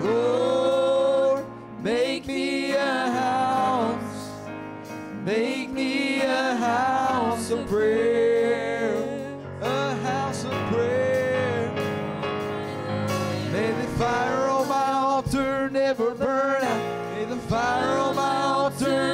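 Live worship song: a woman singing held, sliding notes over instrumental accompaniment.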